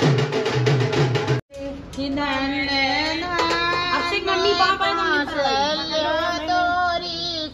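Drum-beat music that cuts off abruptly about a second and a half in, followed by a high singing voice carrying a melody in long, sliding held notes.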